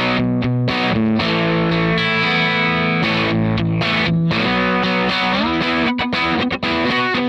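Electric guitar played through a Cort x Moollon CMV15 amp, miked: held notes and chords changing about once a second, with a slide up in pitch a little past the middle.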